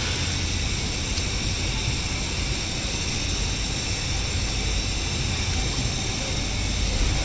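Steady mechanical background drone, a low rumble with a faint high-pitched whine on top, unchanging throughout; any rubbing of the cloth-wrapped tool on the board is lost under it.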